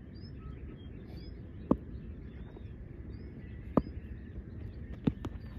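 Birds chirping over a steady low background rumble, with three sharp knocks, the last a quick double, standing out as the loudest sounds.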